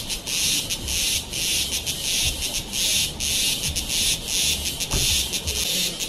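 Cicadas calling in chorus: a loud, high buzz that pulses, swelling and dropping about two to three times a second.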